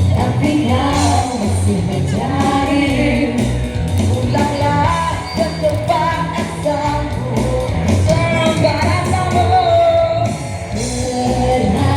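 A singer's voice carrying a Malay pop-rock song over a full band accompaniment.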